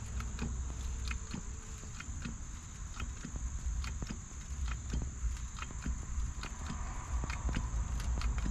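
Steady high chirring of crickets or other insects, with scattered light clicks and ticks and a low rumble underneath.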